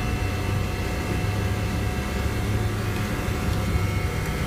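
Newly fitted hermetic refrigeration compressor running steadily just after start-up, a constant mechanical hum with a low electrical drone.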